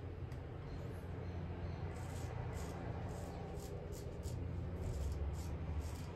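Straight razor scraping through lathered stubble on the upper lip: a run of short scratchy strokes, several a second, starting about two seconds in.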